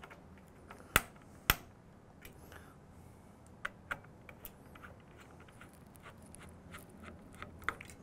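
Precision screwdriver working the Phillips screws on a metal CPU heatsink: two sharp clicks about a second in, then a run of faint, irregular ticks as the bit turns the screws.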